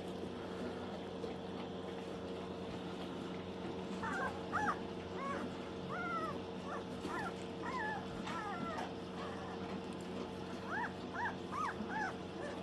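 Coonhound puppies whimpering and yipping in short, high whines that rise and fall, in a run of calls about a third of the way in and another near the end.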